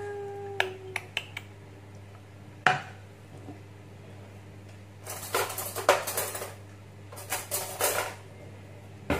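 A china plate handled on a wooden board: a few sharp knocks and clinks, then two spells of scraping and rattling, about five and seven seconds in.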